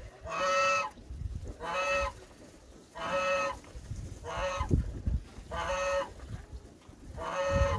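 Domestic goose honking: six steady, even calls about half a second each, roughly one every second and a bit.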